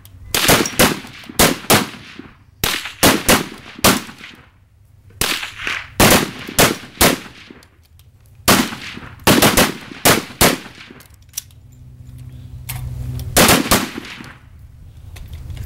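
Rifle shots fired irregularly along a firing line during a rapid-fire string, each a sharp crack with a short echoing tail. Some come close together, with brief lulls between groups.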